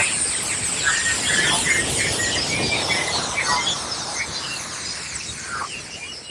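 Auroral kilometric radiation, Earth's natural radio emission from the auroral zones, converted to audio: a dense hiss full of quick chirps and short whistling sweeps, fading away over the last couple of seconds.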